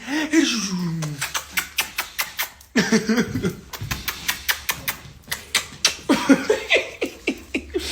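Small dog licking a person's face: a quick run of wet smacking clicks, several a second, mixed with short bits of a man's voice and laughter.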